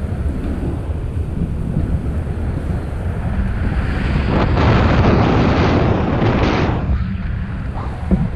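Wind buffeting the action camera's microphone during a paraglider flight: a steady low rumble of rushing air, swelling into a louder, hissier rush from about four seconds in until nearly seven seconds, then dropping back.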